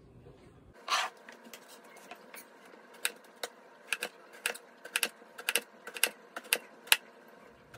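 Kitchen knife slicing an aubergine into rounds, the blade clicking down onto a plastic cutting board about twice a second.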